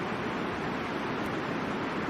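Steady rushing of a river flowing over rocks, an even, unbroken wash of water noise.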